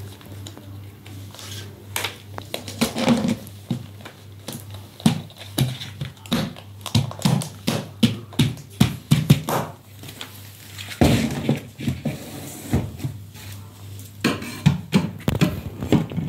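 Blue-and-gold macaw cracking and chewing sunflower seeds in its beak, a run of short sharp cracks and crunches, about two a second through the middle, over a steady low hum.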